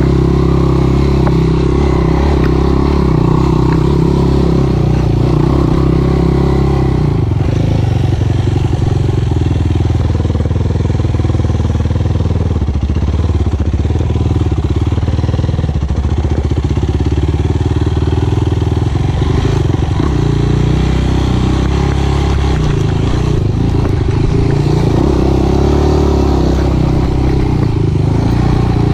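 Four-stroke single-cylinder sport quad engine running continuously and loudly while riding a trail, its note shifting about seven seconds in and again near twenty-four seconds as the throttle changes.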